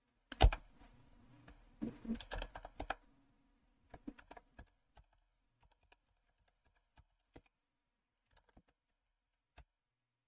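Computer keyboard keystrokes: one loud key press about half a second in, a quick run of keys around two seconds in, then a few more keys and scattered single taps.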